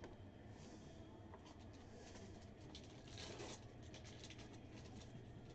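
Faint crinkling of a foil trading-card pack being torn open, with the light rustle of cards being handled, and a short cluster of crackles about three seconds in.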